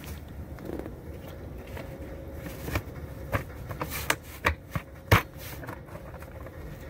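Plastic snap-on toilet seat being pressed down onto the rim of a bag-lined bucket: a string of sharp plastic clicks and knocks, the loudest about five seconds in.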